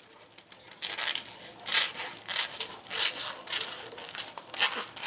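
Scissors snipping lengthwise through a clear plastic roasting sleeve, with the film crinkling. The short cuts start about a second in and come about two a second. The cook reckons the scissors probably want a little sharpening.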